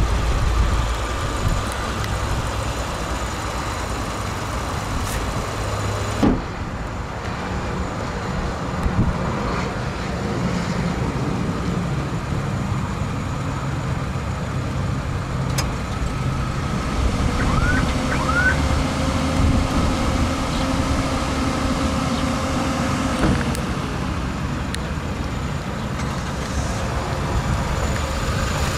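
The 2014 Haima M3's 1.5-litre inline-four idling steadily, heard from outside the car. About six seconds in there is a single loud thump, the bonnet being shut.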